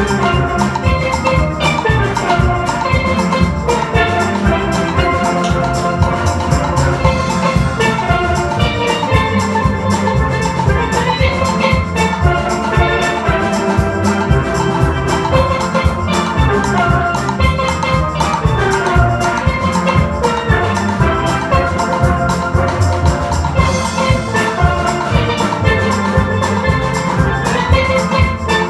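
Steel band playing a gospel tune on steel pans, with many quick melodic notes over a steady drum beat.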